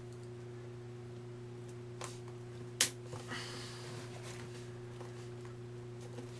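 A nylon zip tie's tail snipped off with cutters: one sharp snap about three seconds in, followed by a short rustle as the plastic fill tube and cloth bag are handled, over a steady low hum.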